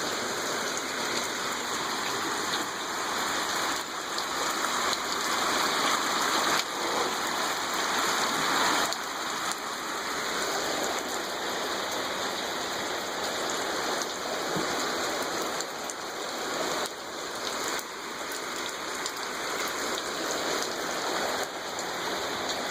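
Steady hiss of falling, splashing water, a little louder for a few seconds near the middle.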